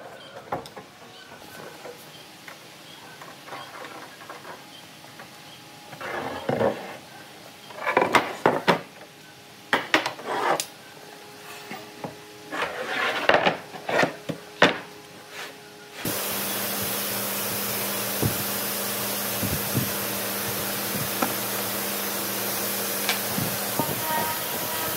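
Pine boards and metal pipe clamps being handled on a workbench: a run of wooden knocks, clunks and scrapes. About sixteen seconds in, the sound switches abruptly to a steady hiss with a faint low hum and a few light taps.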